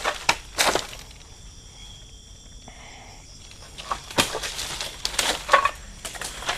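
Footsteps crunching through leaf litter and undergrowth. There are a few steps in the first second and a quieter pause, then a run of steps from about four seconds in.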